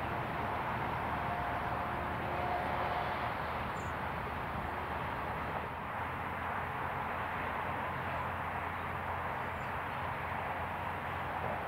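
Light-aircraft piston engines running steadily in the distance: a low, even hum under a steady hiss.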